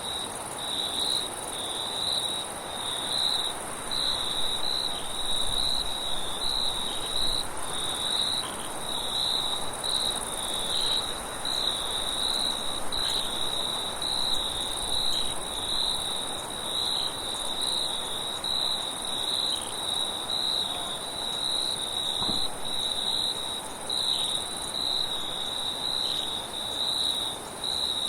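Crickets chirping continuously, a high pulsing trill, over a soft, steady rush of wind.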